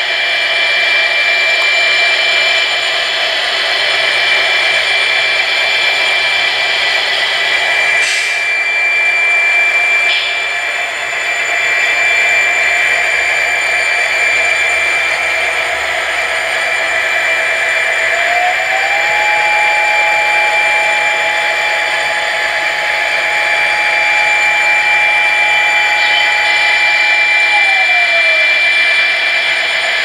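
Sound-decoder diesel engine sound of an HO-scale EMD SD40-2 model locomotive, its 16-cylinder 645 prime mover recording playing steadily through the model's small speaker with a thin, whiny tone. A higher tone steps in about 18 seconds in and falls away about ten seconds later.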